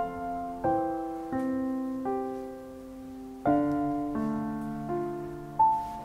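Background piano music: single chords struck about every three-quarters of a second, each fading before the next, with one longer held chord near the middle.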